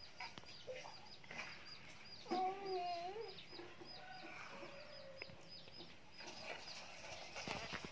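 Chickens clucking faintly, with a steady run of high peeping chirps about three a second and a single wavering call about two seconds in.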